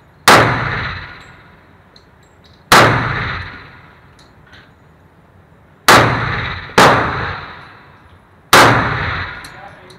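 Five shots from a semi-automatic pistol fired one at a time, unevenly spaced, with two close together past the middle. Each crack rings on in the echo of the enclosed indoor range.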